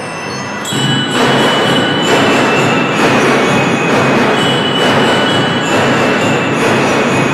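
Drum and lyre corps playing: marching drums with bell lyres ringing held notes over them, loud and dense. The band grows louder a little under a second in.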